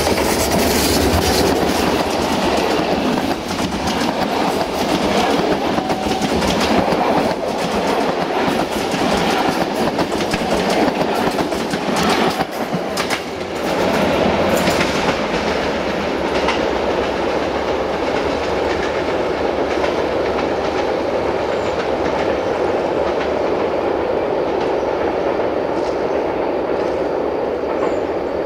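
CFR class 65 diesel-electric locomotive and its passenger carriages passing close by, the wheels clattering over rail joints. After about fifteen seconds the clatter gives way to a steady, duller rumble as the train pulls away.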